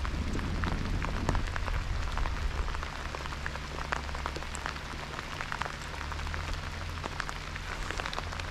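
Steady rain falling on the river and the boat, with many small, sharp drop ticks close by, over a low steady hum.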